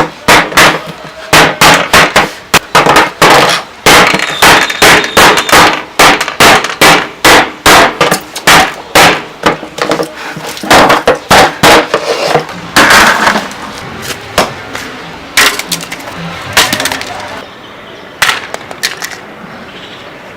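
Loud hard blows in quick succession, about two or three a second, like repeated smashing strikes. After about twelve seconds they thin out to a few scattered hits.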